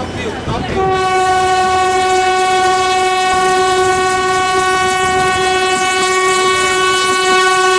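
Kalka–Shimla toy train's locomotive horn sounding one long, steady blast, starting just under a second in, over the rumble of the moving train.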